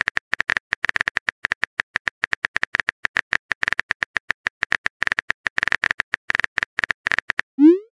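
Simulated phone-keyboard typing sound of a texting app: rapid, crisp key-tap clicks, roughly ten a second, as a message is typed. Near the end the clicks stop and a short rising tone plays as the message is sent.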